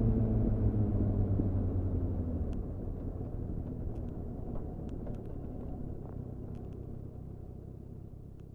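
A 2001 Suzuki GSF 600 Bandit's engine, running through a GPR Furore Nero exhaust. Its note is clear for the first couple of seconds, then turns into a low rumble that gradually dies away, with a few faint ticks.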